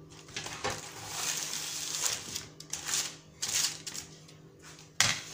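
Parchment baking paper rustling and crinkling as a sheet of scored cracker dough is lifted and slid into a metal baking tray, with a few light clicks and one sharp knock near the end.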